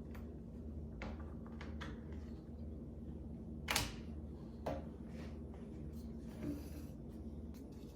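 A few sharp clicks and knocks of HK416 rifle parts being handled and fitted together during reassembly, the loudest a little under four seconds in, over a steady low hum.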